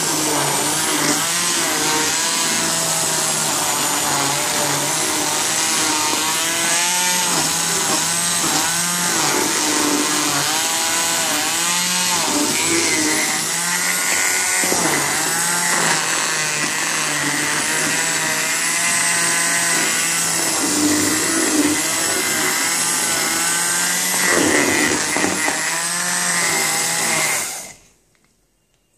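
Electric hand blender running in a steel pot of spiced buttermilk, its motor pitch wavering as the blade moves through the liquid. It switches off suddenly near the end.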